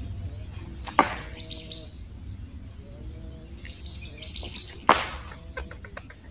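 Birds chirping in short high calls, broken by two sharp knocks, one about a second in and another near five seconds.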